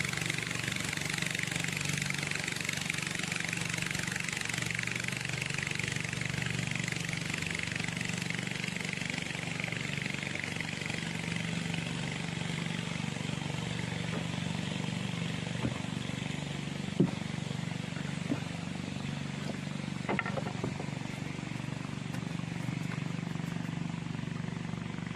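A small engine running steadily under a constant hiss, with a few short sharp clicks past the middle.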